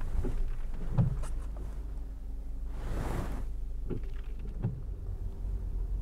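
Inside a moving car on a wet road: steady low rumble of the engine and tyres, with a few dull thumps about a second in and again around four and five seconds, and a short hiss that swells and fades near the middle.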